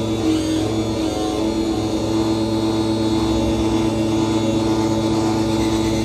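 MFOS Weird Sound Generator analog synthesizer droning: one strong steady tone over a dense buzz with a fast flutter underneath, run through a delay effect.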